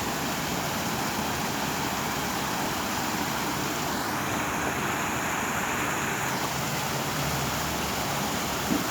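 Water running and splashing down a small artificial sponge-stone waterfall, a steady rushing hiss, whose tone shifts briefly for about two seconds near the middle.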